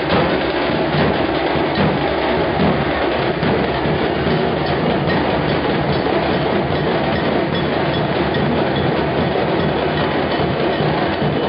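Loud, fast, continuous festival drumming accompanying a palanquin dance.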